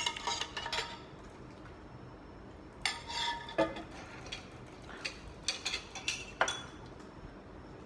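Metal cutlery clinking against crockery: a few scattered clinks and scrapes, some with a short ring, in clusters at the start, around three seconds in and between five and six and a half seconds.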